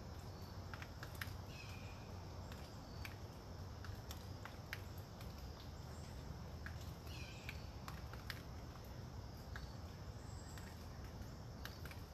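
Wind in the woods after a tropical storm, a steady low rush with scattered light ticks. A bird gives a short call about two seconds in and again about seven seconds in.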